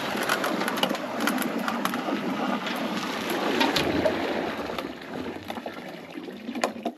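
Hot water pouring from a canister into a frozen water canister, a steady gush with small clicks that tapers off over the last two seconds.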